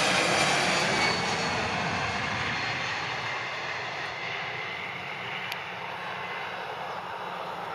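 Airbus A320-family airliner's jet engines at takeoff power: a steady rush of jet noise that fades as the plane rolls away down the runway, with a high engine whine falling in pitch in the first second or so.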